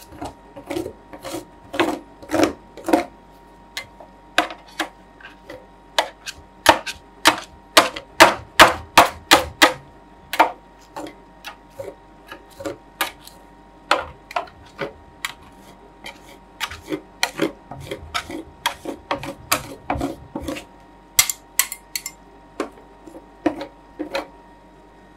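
Metal spatulas tapping and scraping on a thin frozen ice cream layer on the steel cold plate of a roll ice cream machine as it is spread and smoothed flat. Irregular sharp taps, often several a second, come in quick runs, busiest in the first half.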